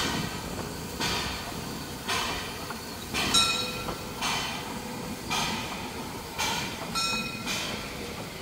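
Narrow-gauge steam tank locomotive 99 6001 pulling away slowly with its train, its exhaust chuffing in even beats about once a second.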